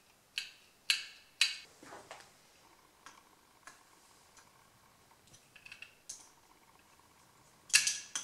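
Light clicks and taps of a screwdriver and fingers on a Kawasaki KVF 300 ATV carburetor: three sharp clicks in the first second and a half, scattered small ticks, and a louder clatter near the end.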